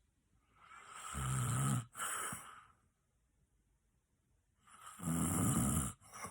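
A person snoring loudly: two long snores about four seconds apart. Each cuts off briefly near its end and trails off in a shorter breath.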